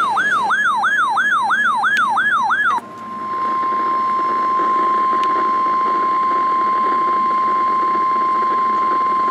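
An electronic siren-like warble, sweeping up and down about three times a second, cuts off after nearly three seconds. It is followed by the steady NOAA Weather Radio 1050 Hz warning alarm tone, the signal that comes before a warning broadcast.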